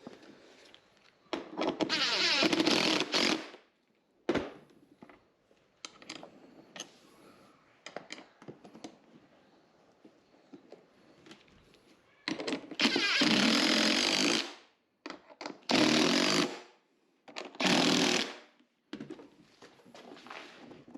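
A power driver running in four bursts of one to two seconds, driving screws into a plastic tractor seat to fasten a bracket, with small clicks and knocks of handling in between.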